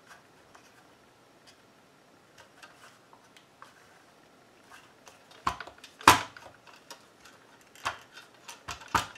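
A hard-plastic radio earmuff cup and its battery compartment being handled and pressed, the battery contacts flexed to chase an intermittent power loss. Faint rubbing first, then a few sharp plastic clicks and knocks from about five seconds in, the loudest about six seconds in.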